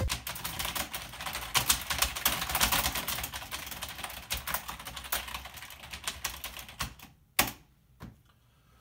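Fast typing on a computer keyboard: a dense clatter of keystrokes for about seven seconds, then it stops with one louder single strike and a last light tap.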